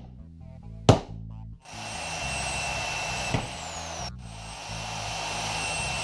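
A metal punch struck once with a hammer, then a corded electric drill running as it bores a hole into a motorcycle's front mudguard, with a brief stop about halfway through. A bass-guitar music track plays underneath.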